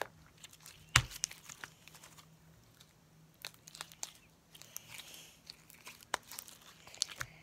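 Sticky bead-filled slime being stretched, squeezed and pulled apart by hand, giving a string of irregular crackling pops and clicks, the sharpest about a second in.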